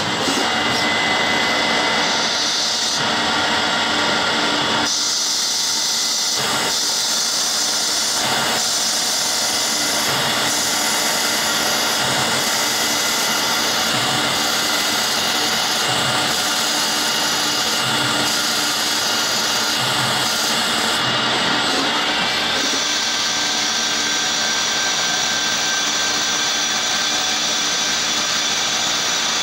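CNC lathe running through a machining cycle on eccentric parts: a steady whine of spindles and tooling over a high cutting hiss. The tone shifts every second or two as operations change, and turns to a steadier hum about three quarters of the way through.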